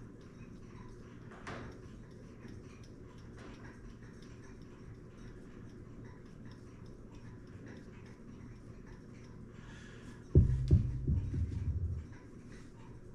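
Quiet handling of brake parts: faint ticks and scrapes as a small brush dabs anti-seize onto the steel backing of a disc brake pad. About ten seconds in, a sudden loud low knocking rumble lasts about a second and a half.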